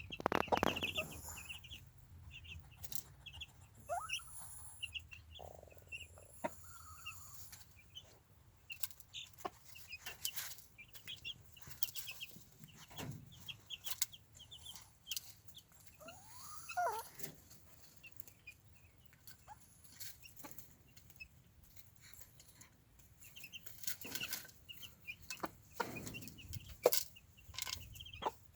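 Easter Egger chicks peeping steadily in short, high, contented cheeps. The mother hen now and then gives lower clucking calls, and there are scattered sharp taps.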